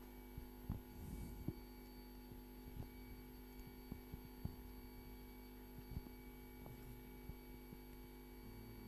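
Low, steady electrical hum, with a few faint scattered knocks and clicks.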